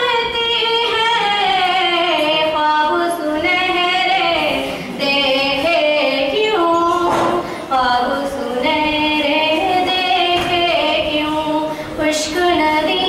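A woman singing solo and unaccompanied, in long drawn-out notes with wavering ornaments on the held pitches and brief breaths between phrases.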